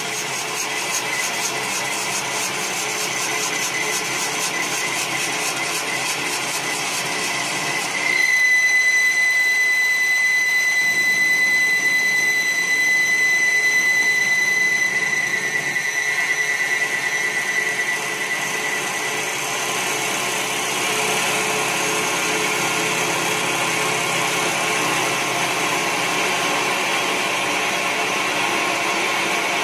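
CNC wood lathe turning a wooden spindle, its spinning stock and cutters running with a steady mechanical whirr of cutting. A high steady whine starts abruptly about eight seconds in, with the sound getting louder, and fades out some ten seconds later.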